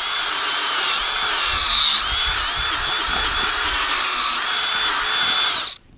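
Power drill spinning a long bit into soil, boring a hole in the dirt. The motor whine rises and dips in pitch several times, then cuts off suddenly just before the end.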